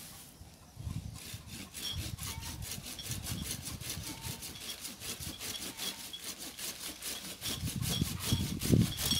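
Small pruning hand saw cutting through a fruit-tree branch in quick, even strokes, several a second, starting about a second in. Near the end there are heavier low thumps as the cut nears its finish.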